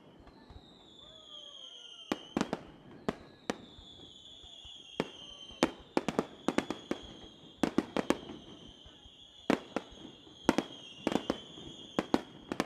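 Aerial firework shells bursting in a quick, irregular string of sharp bangs, several close together from about two seconds in. Under them run high whistles that slide slowly down in pitch and overlap one another.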